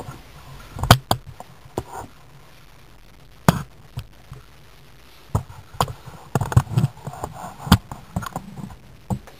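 Irregular knocks and thumps, about a dozen, as the wooden wedging table and things around it are handled and bumped; the loudest come about a second in, at about three and a half seconds and near the end.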